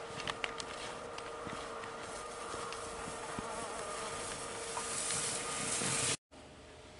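A steady droning hum with a hiss of skis carving over snow that grows louder as the skier comes close, then cuts off abruptly about six seconds in. A few sharp clicks sound near the start.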